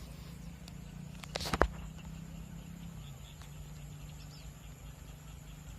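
Open rice-field ambience: a steady low hum and faint steady high tones, with faint high chirps of small animals. A short cluster of sharp clicks or rustles comes about a second and a half in.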